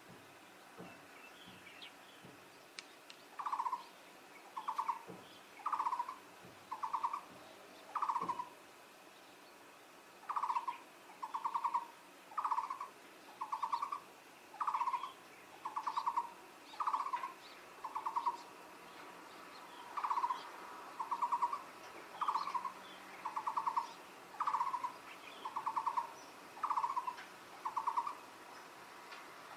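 Taiwan barbet calling: a long, regular series of short trilled notes, roughly one a second, starting a few seconds in with one short break.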